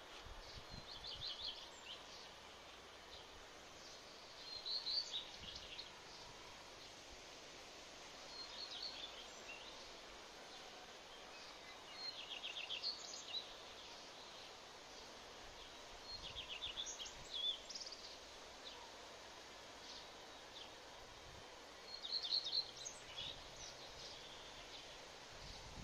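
A songbird singing short trilled phrases, one roughly every four seconds, over faint steady outdoor background noise.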